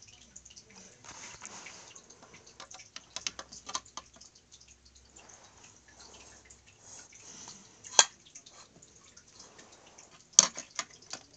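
Handling noise from small plastic toy figures being moved by hand: scattered light clicks and taps, with two sharp, louder clicks about eight and ten seconds in.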